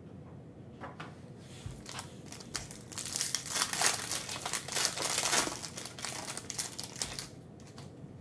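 Foil wrapper of a Panini Prizm basketball card pack crinkling as it is torn open and pulled off the cards. The crackling builds from about a second in, is loudest in the middle and fades out near the end.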